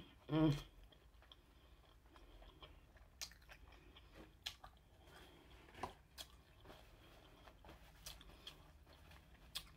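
Close-miked chewing of a mouthful of seafood: faint wet clicks and small smacks of the mouth, scattered and irregular, with a short hum of a voice about half a second in.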